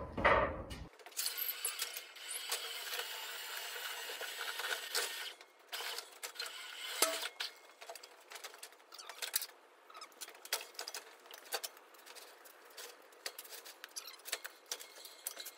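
Scraping, knocks and scattered clicks as a tall air-compressor tank is rocked and walked across a wooden trailer deck. It opens with a heavy thump, then a few seconds of steady scraping, then irregular taps and clicks.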